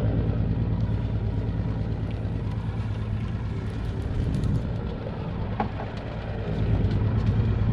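Boat engine running steadily with a low hum, dipping a little in level past the middle and swelling again near the end. One light knock about five and a half seconds in.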